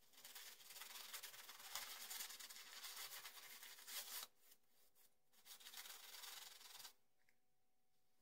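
Omega Hi-Brush synthetic shaving brush lathering shaving cream on the face, a faint bristly rubbing. It brushes for about four seconds, pauses, brushes again for about a second and a half, and stops about seven seconds in.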